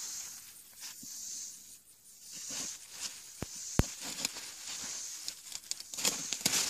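Large sunflower's stalk and leaves being worked by hand to break off its ripe seed head: rustling with sharp cracks, one loud snap about halfway and a quick run of cracking and tearing near the end as the head comes free. A high, pulsing insect buzz swells and fades about once a second behind it.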